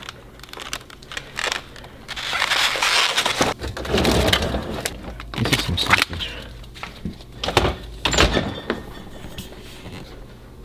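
Food being handled and shifted around in a refrigerator: rustling of packaging with irregular knocks and clatters that come and go in bursts.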